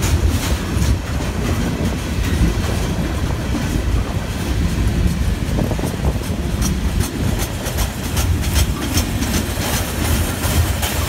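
Norfolk Southern freight train cars rolling past in a steady low rumble, with the clickety-clack of wheels over rail joints. The clicks come thicker in the second half.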